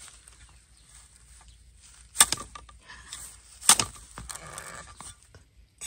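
Two sharp chops of a long-handled digging spade biting into the base of a bamboo clump to cut out a wild bamboo shoot, about a second and a half apart, followed by a lighter knock.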